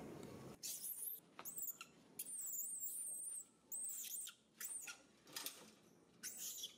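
Baby macaque giving a string of high-pitched squeals, some rising then falling in pitch, one long and wavering, starting about half a second in.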